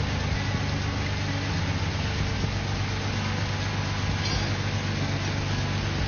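A steady low engine hum under a constant hiss, unchanging throughout.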